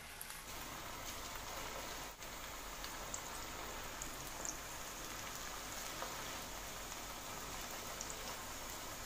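Hot oil sizzling steadily as cabbage Manchurian batter balls deep-fry in a kadhai, with a few faint pops.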